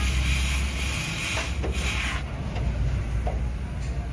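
Gas cutting torch hissing as it cuts into the steel frame rail of a truck chassis. The hiss drops off sharply about two seconds in as the torch is lifted away, leaving a few faint clicks.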